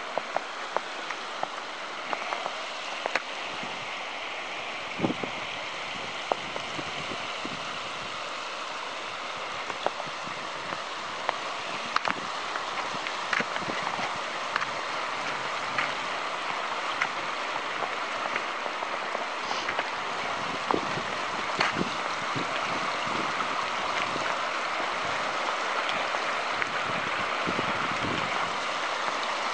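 Kananaskis River flowing over rocks and shallow riffles: a steady rushing that grows a little louder toward the end. Scattered sharp ticks sound over it.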